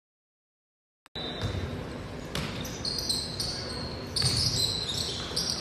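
Dead silence for about a second, then indoor basketball game sound: the ball bouncing on the hardwood floor and sneakers squeaking, with voices in the background.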